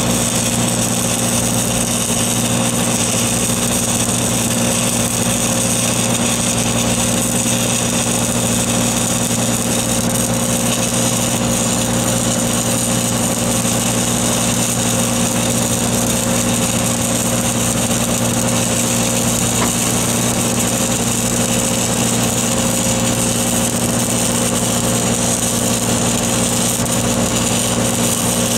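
Engine-driven welding machine running steadily, with a constant high hiss over its drone.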